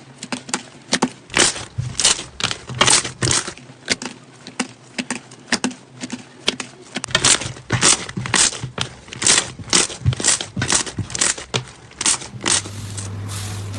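Slime being squeezed and pressed by hand: an irregular run of sticky clicks and crackling pops, a few a second. Near the end it changes to a steadier rustling hiss with a low hum.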